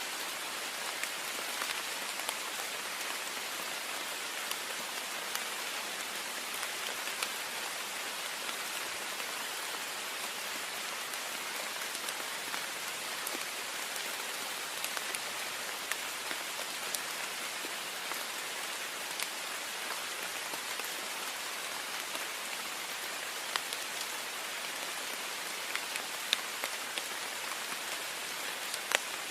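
Heavy rain falling steadily on a window, a dense even hiss with scattered sharper drop taps, a few louder ones near the end.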